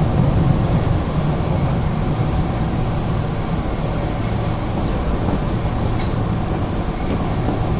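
Osaka Municipal Subway 22 series train running through an underground tunnel: a steady rumble of wheels and running gear with a low hum, easing slightly about a second in.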